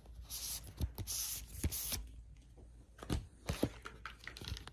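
Paper tear strip being ripped off an Apple Watch band's cardboard box, in two stretches of ripping over the first two seconds. Then come a few light knocks and taps as the box is handled.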